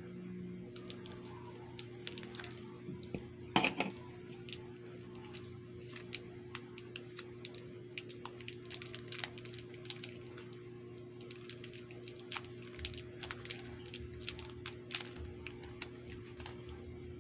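Sugus chewy candy wrappers being handled and unwrapped: scattered small crinkles and clicks, with a louder crackle about three and a half seconds in, over a steady low hum.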